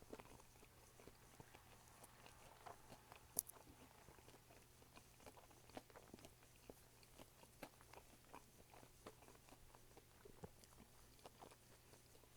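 Faint close-up chewing: irregular soft mouth clicks and smacks from a person eating a fish sandwich and fries, with one sharper click about three and a half seconds in.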